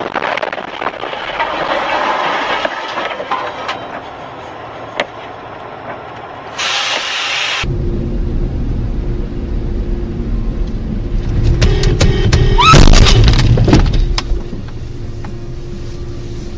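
Car driving noise heard from inside the vehicle: a steady hiss of road and wind noise, then, after a sudden change, a heavy low engine and road rumble. About twelve to fourteen seconds in comes the loudest stretch, several knocks with a brief rising squeal.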